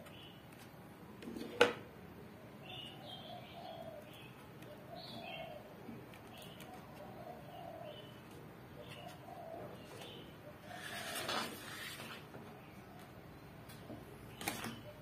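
A dove cooing over and over, with small birds chirping faintly above it. A sharp click about a second and a half in, a brief rustle past the two-thirds mark and a second click near the end.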